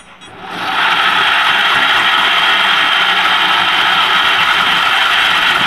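E-rickshaw gearbox running with a loud, continuous clattering 'kot-kot' noise that starts about half a second in. The mechanic traces the noise to the gearbox's big differential pinion jumping.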